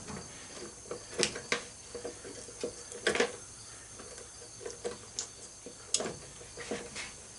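Irregular light clicks and knocks of hand work on a chipper shredder's switch housing and parts, the sharpest about a second in, around three seconds and near six seconds.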